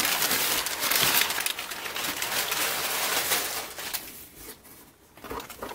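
Crumpled brown kraft packing paper rustling and crinkling as it is pulled out of a cardboard box, dense and crackly for about three seconds, then fading away.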